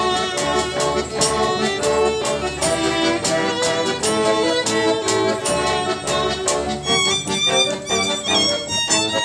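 Live Romani (Gypsy) folk music from an acoustic ensemble with accordion and double bass, played with a steady beat. The playing turns brighter and higher about seven seconds in.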